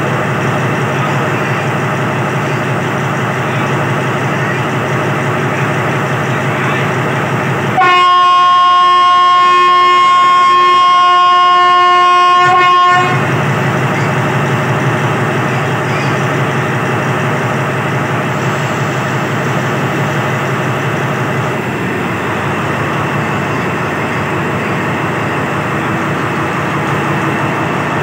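Alsthom diesel-electric locomotive running at the platform as it starts to pull a train away. About eight seconds in it sounds one long steady horn blast lasting about five seconds, the loudest thing heard, and the engine runs on beneath it.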